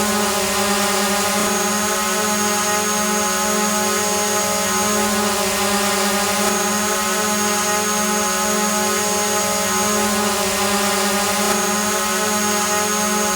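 Multirotor drone hovering: its propellers hold a steady buzzing whine with a constant pitch and a hiss above it.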